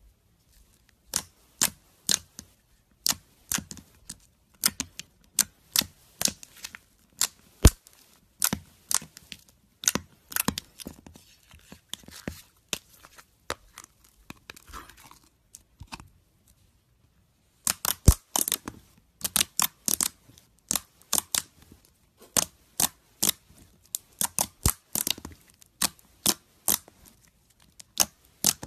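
Slime being squeezed and poked by hand, giving a run of sharp, irregular crackling pops and clicks as trapped air bursts, with a short pause a little past halfway.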